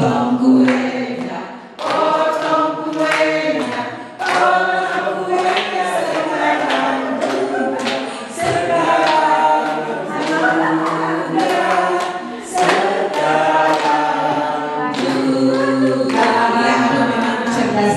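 A group of people singing a birthday song together in chorus, in sung lines with short breaks between them, led by a woman singing into a microphone.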